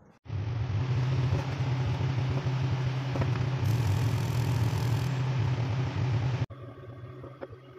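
Kitchen range hood fan running: a steady low hum with an airy hiss. It drops off suddenly about six and a half seconds in, leaving a fainter hum.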